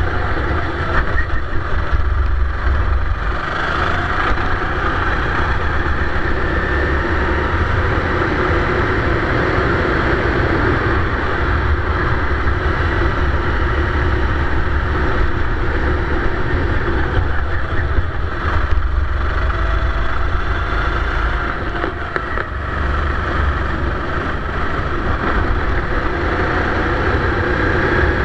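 Sodi racing kart's engine running hard on track, its pitch rising and falling as it accelerates out of corners and eases into them, over a steady low rumble.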